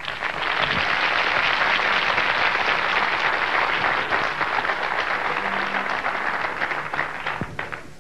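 Audience applauding: many hands clapping together, starting just after the beginning and dying away near the end.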